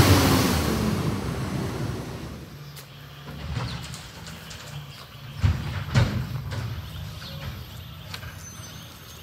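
Autocar Xpeditor refuse truck's engine pulling away, fading out over the first couple of seconds and then running low in the distance. Two sharp knocks ring out about five and a half and six seconds in.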